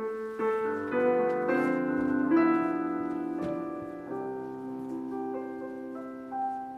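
Piano music starting suddenly: a slow run of sustained notes and chords, a new note or chord entering every second or so and ringing on.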